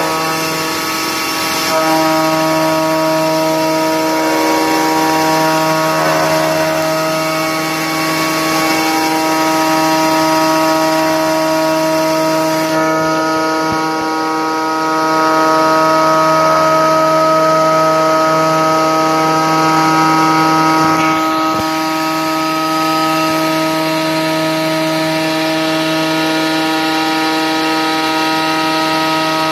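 CNC 6040 router's spindle milling aluminium: a steady whine of several held pitches over a rough cutting noise, a little louder for a few seconds past the middle.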